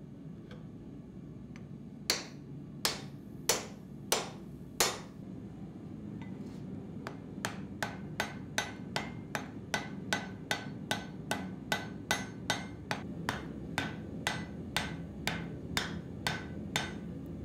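Hand hammer striking red-hot steel on an anvil: five heavy blows about two seconds in, then a steady run of lighter blows at about two a second, each with a short ring. The run of lighter blows is forge welding the poll onto the axe head.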